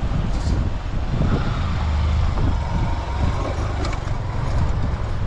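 Motorcycle engine running under load as the bike climbs a steep, rocky dirt track, a continuous rumble that rises and falls.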